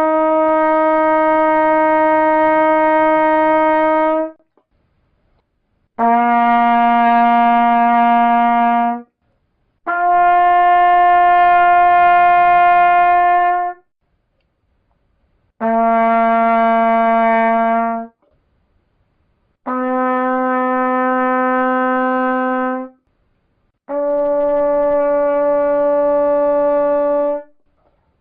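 Trumpet playing long held notes, six in all, each lasting three to four seconds with short silent pauses between them, the pitch changing from one note to the next.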